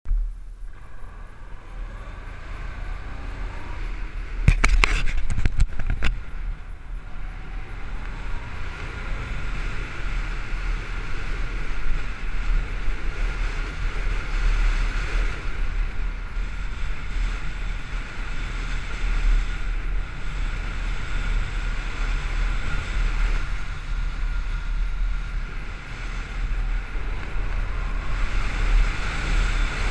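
Steady wind noise on a GoPro HERO3's microphone over the low rumble of a Honda DN-01 motorcycle's 680 cc V-twin riding along. A cluster of sharp knocks comes about four and a half to six seconds in.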